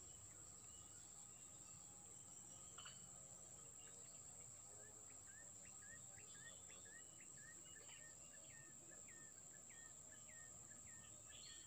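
Faint outdoor ambience: a steady high-pitched insect drone, and from about five seconds in a run of short repeated chirps, about two a second.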